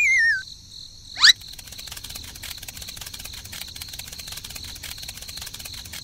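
Cartoon sound effects: a wobbling falling whistle that ends just after the start, a quick loud rising zip about a second in, then crickets chirping steadily.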